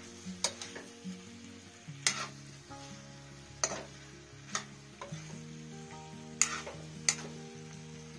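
Steel spoon stirring potato and cauliflower pieces in a kadhai, knocking and scraping on the pan in about six sharp clinks, over a faint sizzle of the vegetables frying. Background music runs underneath.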